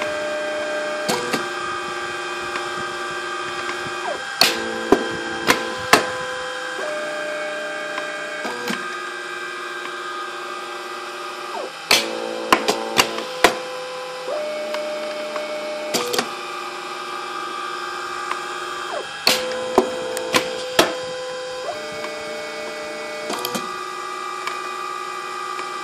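Stepper motors of a homemade automated satin-ribbon cutter, driving belt-driven feed rollers and whining in steady tones that jump to a new pitch every few seconds as the motors change speed. Sharp clicks and knocks come in clusters, several at a time, from the machine's mechanism as it hot-cuts the ribbon.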